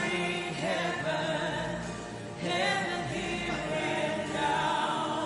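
Slow gospel worship music, with voices holding long sung notes over a sustained backing.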